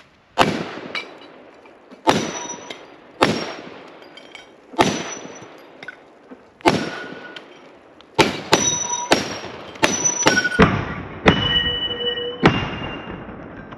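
Semi-automatic Big Horn Armory AR500 rifle in .500 Auto Max firing about a dozen shots at steel plate targets, each hit leaving a metallic ring. The first shots come a second or two apart, and the shots come faster after about eight seconds.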